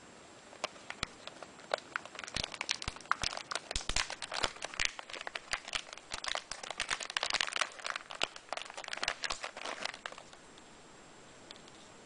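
Clear plastic packaging pouch crinkling and crackling as hands handle it and open it, a dense, irregular run of crinkles that stops near the end.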